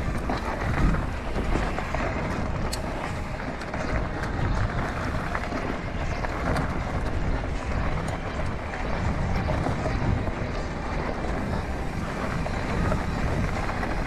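Mountain bike descending a dirt forest trail at speed: a steady rush of knobby tyres rolling over dirt and roots, with a few sharp clicks and rattles from the bike over bumps.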